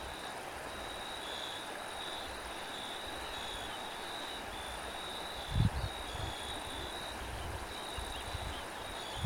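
Crickets trilling steadily in long, high-pitched pulses over a steady hiss of wind. About five and a half seconds in, a short gust buffets the microphone with a low rumble.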